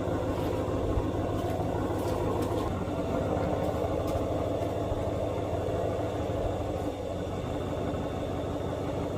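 Vehicle engine idling steadily, with a slight change in its note about a quarter of the way in.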